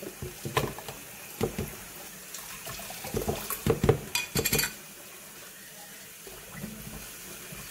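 Frozen orange juice concentrate slid out of its can into a plastic pitcher, with a series of knocks as the can taps against the pitcher rim, loudest about four seconds in. After that the kitchen tap runs water into the empty can.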